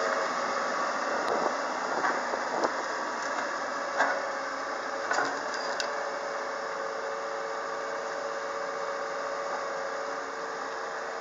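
Komatsu PW150ES wheeled excavator's diesel engine running steadily, with a thin steady high tone over it and a few sharp clicks and knocks in the first half.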